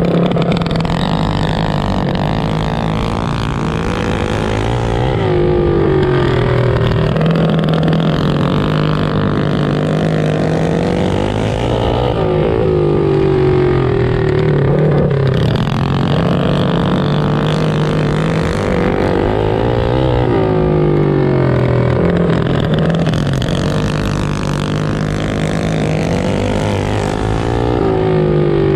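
Several racing mini bikes' small single-cylinder engines revving around a flat track. Their pitch climbs on the straights and drops off into the turns, over and over every few seconds, with the engines overlapping.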